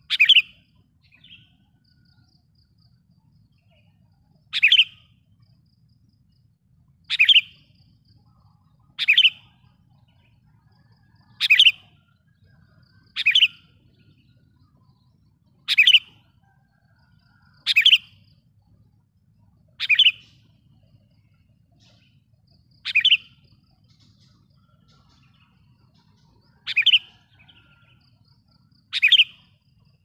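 Sooty-headed bulbul (kutilang) giving short, sharp, loud calls, one every two to three seconds, about twelve in all. This is the pikat call that a lure bird uses to provoke and draw in wild bulbuls.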